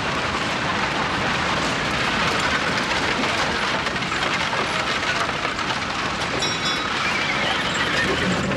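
Clatter and rattle of a horse-drawn fire engine rolling in, with hooves and iron-rimmed wheels, over the crackle of a large blaze. A brief high metallic ring comes about six and a half seconds in.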